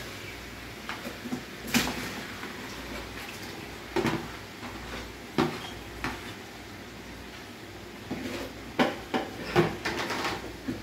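Metal ladle knocking and scraping against a plastic bowl and a large aluminium cooking pot as marinated chicken is scraped into the pot and stirred. There are separate knocks a second or two apart, then a quicker run of clatters near the end.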